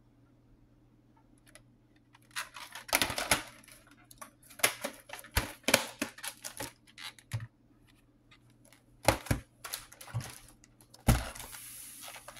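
VHS cassette and plastic case being handled: irregular clicks and clacks of hard plastic, starting about two seconds in.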